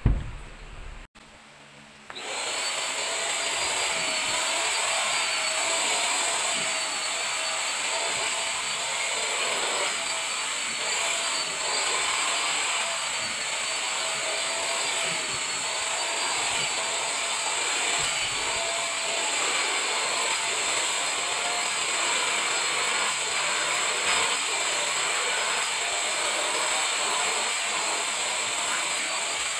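A small handheld vacuum cleaner switches on about two seconds in and runs steadily, with a high motor whine, as its nozzle is drawn over a fabric sofa cushion. A knock comes at the very start.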